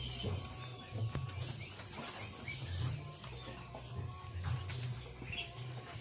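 Small caged songbirds chirping: many short, high, downward chirps in quick succession, over a low pulsing hum.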